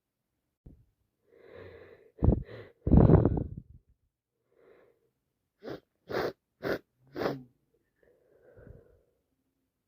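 A woman sneezing from an allergy attack. Catching breaths build up, then comes a loud explosive sneeze about three seconds in. A few seconds later come four short sharp bursts of breath about half a second apart, then a faint breath.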